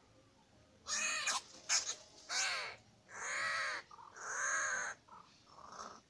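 Greater coucal caught in a wire cage trap giving a series of loud, drawn-out distress cries, each rising and falling in pitch, starting about a second in, with shorter cries near the end.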